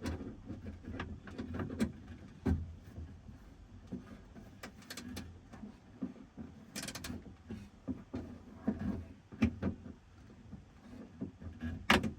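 Irregular clicks and knocks of a socket wrench working a door-handle nut inside a pickup truck's door, over a steady low rumble of wind on the microphone.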